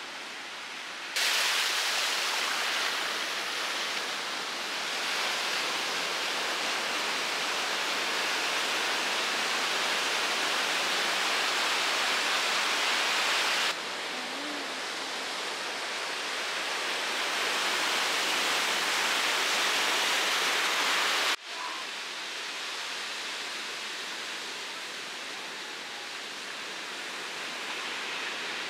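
Sea surf washing onto a sandy beach: a steady rushing hiss that slowly swells and eases. It jumps louder about a second in and drops abruptly twice later, about halfway and three quarters of the way through, where the shots change.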